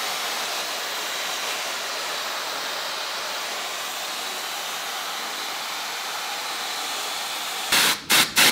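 Dyson hair dryer with a diffuser attachment blowing steadily on a wig's freshly tinted lace. Near the end it stops and a spray bottle is pumped in quick spritzes, several a second.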